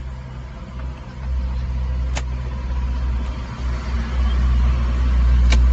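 A Jeep Wrangler engine idling, a steady low rumble that grows louder about a second in and again later, with two sharp clicks a few seconds apart.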